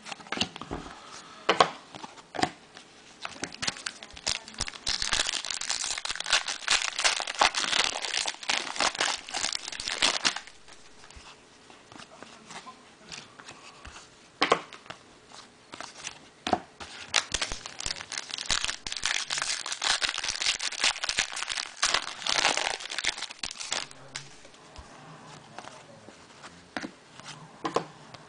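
Foil trading-card pack wrappers crinkling and tearing open by hand. There are two long stretches of dense crinkling, one starting about four seconds in and one about seventeen seconds in, with scattered sharp snaps and clicks between them.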